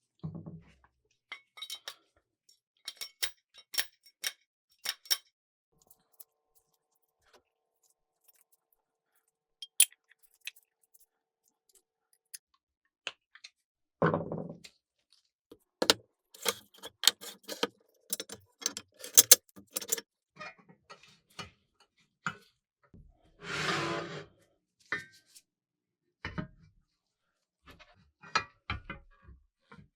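Small metal parts of an antique french fry cutter being handled, giving scattered clicks and clinks, some in quick runs, with two short fuller handling noises, one about halfway through and one near the end.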